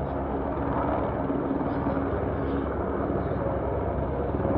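Helicopter running on the helipad, its engine and rotor giving a steady drone.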